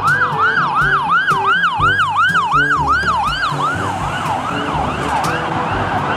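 Ambulance siren in a fast yelp, rising and falling about three times a second, growing fainter in the second half as the ambulance drives away. Background music plays underneath.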